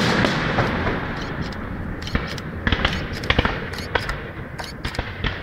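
Aerial fireworks shells bursting: a loud bang right at the start, followed by a fading crackle, then a run of sharp cracks and pops from about two seconds in.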